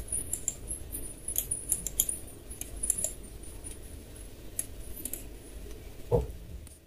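Irregular computer mouse clicks over a low steady hum, with one louder short sound about six seconds in.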